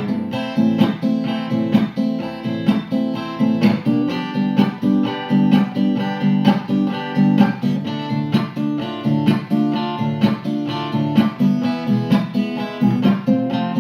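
Strummed acoustic guitar playing an instrumental passage of a song, in steady rhythmic strokes with no singing.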